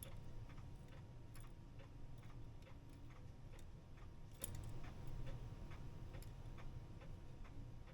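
Faint ticking of a freshly reassembled, fully wound Herschede clock movement's escapement, a series of sharp ticks as the pendulum swings. The movement is not yet running on its own: the clockmaker puts it down to the beat needing adjustment at the suspension spring.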